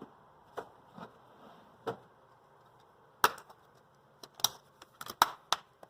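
Scattered sharp clicks and taps of something being handled. The loudest comes a little over three seconds in, with a quick run of clicks near the end.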